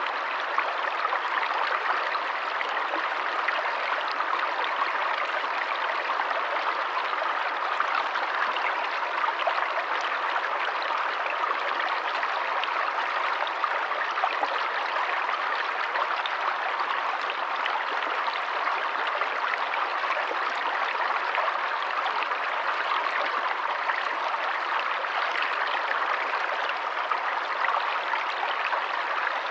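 Forest stream running over rocks: a steady rush of flowing water with fine trickling and splashing.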